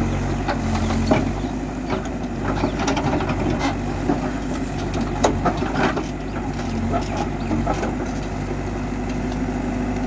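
Manitou TLB 844S backhoe loader's diesel engine running steadily while the backhoe arm works, with scattered knocks and clatter as the bucket digs into earth and stones.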